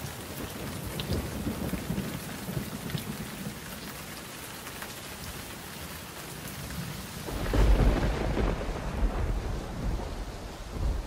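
Steady rain with a deep roll of thunder that swells in about seven seconds in and rumbles on to the end.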